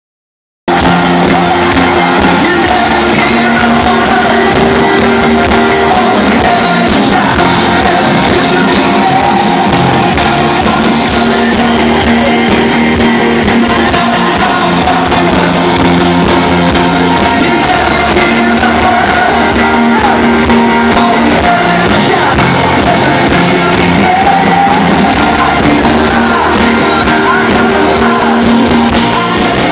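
Live worship band playing loudly with singing, heard from within the arena crowd; the music starts about half a second in.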